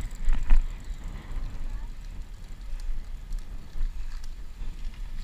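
Wind rumbling on the microphone of a camera carried on a moving bicycle, a steady low rumble, with a brief louder burst about half a second in.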